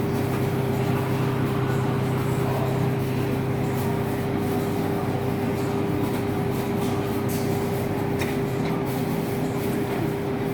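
Espresso machine pump running steadily, a constant even hum, while a double shot of espresso extracts into the cup.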